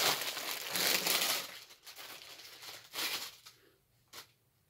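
Clear plastic packaging bag crinkling as it is pulled open and a folded garment drawn out, loudest in the first second and a half, with another rustle about three seconds in and a short tap near the end.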